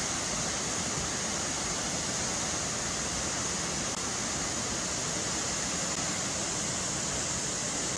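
Fast-flowing flash floodwater rushing down a street, a steady noisy rush.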